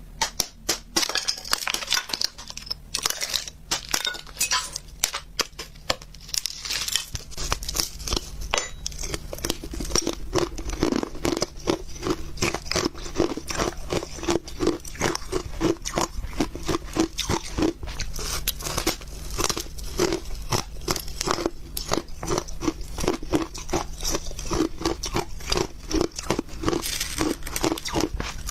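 Close-miked mouth sounds of someone eating shaved ice: crisp, rapid crunches that settle, from about ten seconds in, into steady rhythmic chewing.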